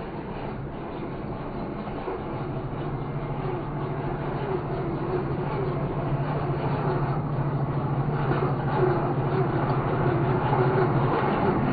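Electric drive motor and plastic gearbox of a remote-control construction model whirring steadily, growing louder throughout.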